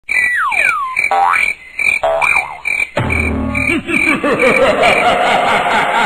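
Cartoon sound effects. First a short tone repeating about two or three times a second over two falling tones, then a thump about halfway through, followed by a quick run of repeated sounds that climb in pitch and speed up.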